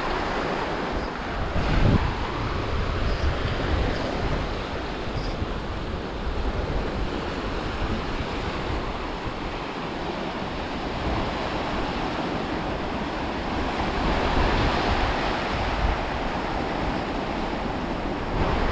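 Small waves washing over a rocky shoreline, with wind rumbling on the microphone; the surf grows a little louder about two-thirds of the way through.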